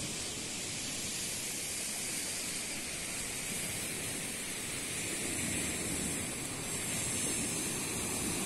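Baltic Sea surf washing on the beach: a steady rushing hiss that swells a little in the second half.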